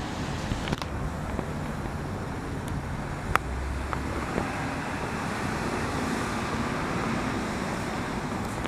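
Steady outdoor road-traffic noise from passing cars, with a sharp click about three seconds in.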